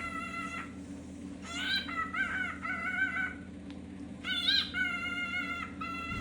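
Cockatiel giving repeated contact calls: about six short whistled calls, each around half a second, some wavering in pitch, in bursts with short pauses. A bird calls like this when a flock mate is out of sight. A steady low hum runs underneath.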